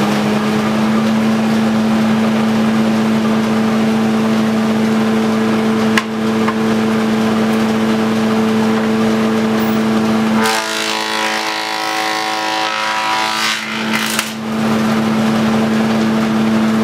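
1930s Osbyverken belt-driven thickness planer running with a steady, loud whine. There is one sharp click about six seconds in. From about ten seconds in the tone changes for some four seconds as a board is fed through and planed, with two short bursts near the end of the cut, then the steady whine returns.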